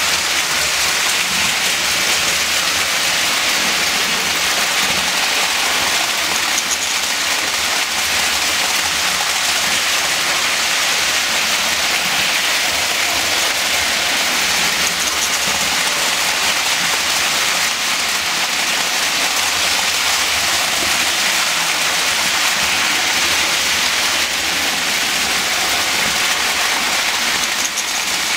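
Lionel O-gauge toy trains running on three-rail metal track: a steady rushing rattle of wheels and electric motors with no break.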